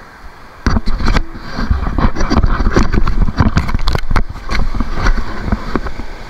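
Loud rushing noise that starts suddenly just under a second in: surf surging and foaming over shore rocks, with wind buffeting and handling crackles on the phone's microphone as it moves.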